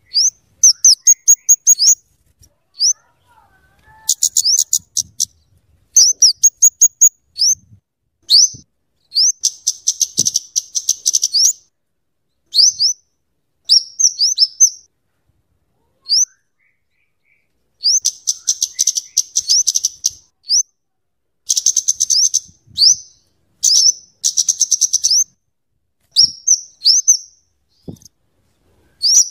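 Kemade, a flowerpecker (cabe-cabean), calling: sharp high single notes and bursts of rapid chattering, the fast note runs that bird keepers call crecetan and tembakan, with brief pauses between bursts.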